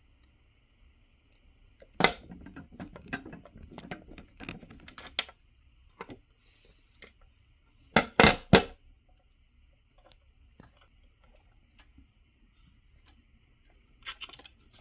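Small hard parts being handled: a couple of seconds of clicking and rattling, then three sharp clicks in quick succession about eight seconds in, and a short rattle near the end.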